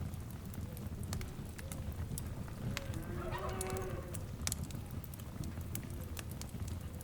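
Fire crackling with sharp pops over a low steady rumble. About three seconds in, an animal gives a short call that rises and falls, with fainter calls later on.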